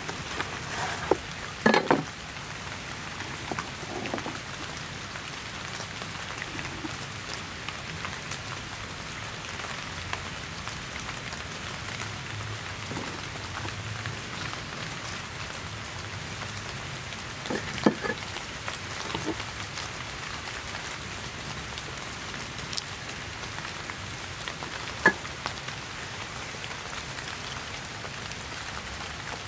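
Steady rain falling, with a few sharp knocks: near the start a cleaver cuts through the crisp breaded veal chop onto a wooden board, and further short knocks come about 18 and 25 seconds in.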